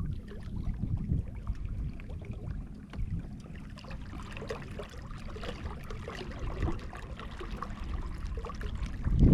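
Wind buffeting the microphone as a steady low rumble, with scattered light clicks and taps.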